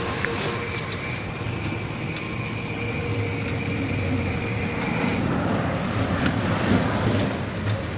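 Steady motor-vehicle engine and road noise, with a faint high whine that stops about five seconds in.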